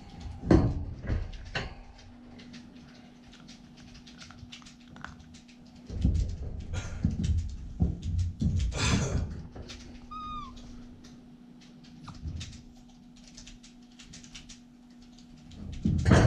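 Siberian husky puppy moving about in a wire crate, with thumps and rustles as it bumps into the camera, and one short, high whine about ten seconds in.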